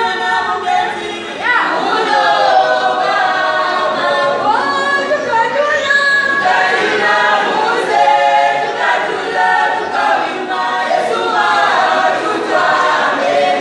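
A choir singing a cappella: many voices together in harmony, with no instruments. The singing grows louder about a second and a half in.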